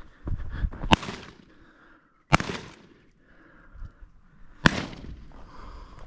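Three sharp shotgun shots, about a second in, at about two and a half seconds and near five seconds, each followed by a short echo.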